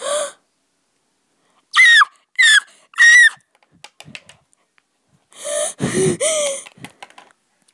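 A child's voice squealing: three short, very high squeaks, each falling in pitch, about half a second apart, then a longer breathy squeal near the end. A few light clicks of toys being handled come in between.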